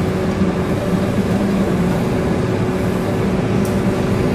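Steady rumble of storm wind and heavy sea aboard an oil tanker, with a steady humming tone of ship's machinery running under it.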